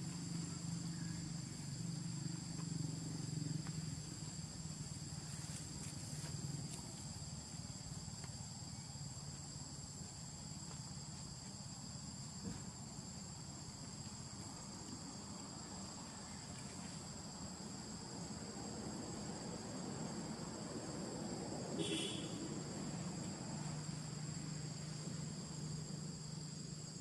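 A steady insect chorus, crickets or cicadas, holding two unbroken high-pitched tones. One short, sharp call breaks through about two-thirds of the way in.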